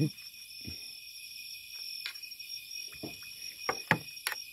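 Steady high-pitched chorus of night insects, with a few sharp clicks of a metal spoon against a metal baking tray as chopped greens are stirred, the loudest near the end.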